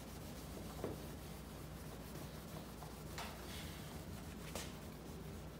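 A cloth rag rubbing metal polish by hand over a plastic headlight lens to buff out yellowed oxidation: a faint, steady scrubbing with a few short scrapes, over a low steady hum.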